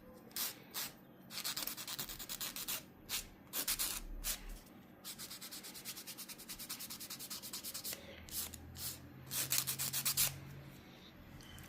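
A nail file rasping against a repaired fingernail as its edge is shaped, in quick back-and-forth strokes: short bunches of strokes, then a fast, even run of strokes in the middle.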